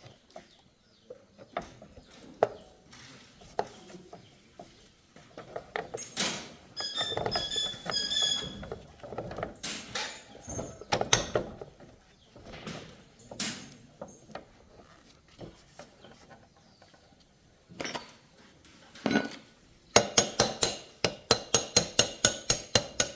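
Metal tools and motorcycle parts clinking and tapping as they are handled, with a short metallic ringing about seven seconds in. Near the end a fast, even run of clicks starts, about four a second.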